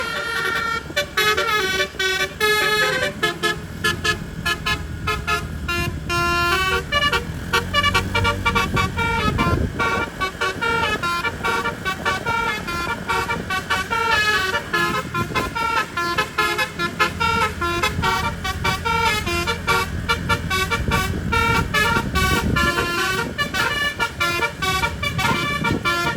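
Bus telolet: a multi-trumpet roof-mounted air horn playing a fast melody of short, stepped notes in the 'basuri' style, over the rumble of road and engine noise.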